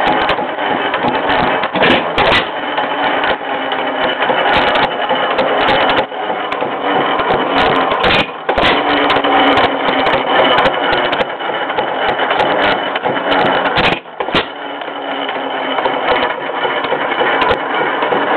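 Fairbanks-Morse Z hit-and-miss engine running: a steady mechanical clatter from its valve gear and linkage, with sharp bangs every second or few, the firing strokes between coasting cycles.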